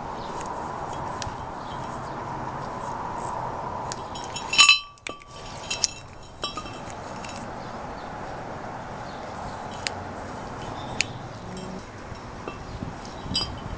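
A sharp metallic clink with a brief ringing about five seconds in, among a few light clicks over steady background noise.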